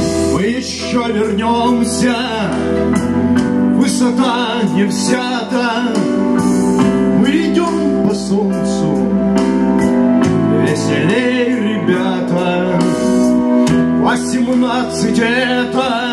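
A song performed live: a man singing into a microphone over an acoustic guitar and a held accompaniment with a steady, sustained sound.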